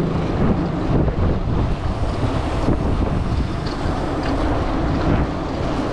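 Wind buffeting the microphone of a camera carried by a moving rider: a steady rushing rumble with a faint steady hum underneath.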